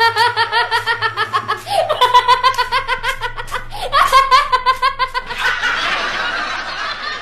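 High-pitched laughter in quick, even bursts, in three runs that each start on a rising note, giving way about five seconds in to a denser, hissy wash of sound.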